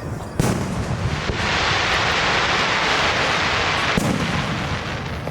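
Fireworks shells bursting: a sharp bang, then about three seconds of dense crackling that cuts off with another bang.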